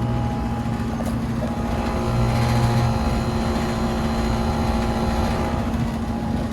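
2007 Ruud Achiever two-ton air conditioner condensing unit running steadily: a constant compressor hum under the whoosh of the condenser fan, with a few higher tones joining about a second in.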